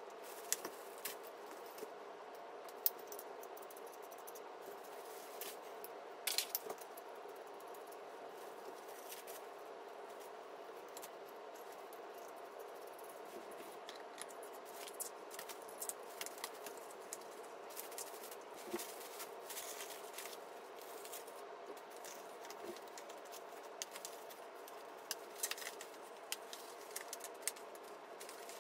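Faint, scattered clicks, taps and rattles of metal floor-lamp parts being handled and screwed together, with a few short crackles, over a steady low hum.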